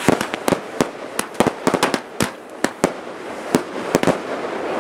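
Aerial fireworks bursting overhead: a rapid, irregular string of sharp bangs, several a second, over a steady noisy background.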